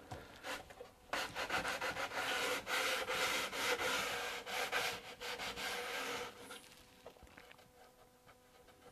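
A hand rubbing hard along heat-activated edge banding on a plywood edge, pressing it down while the glue is still warm. The rubbing runs steadily from about a second in until about six seconds in, then only faint scuffs.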